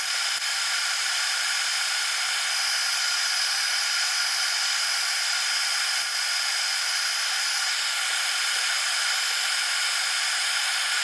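Steady hiss of primer being sprayed onto a plastic scale model, with a steady high whine running under it.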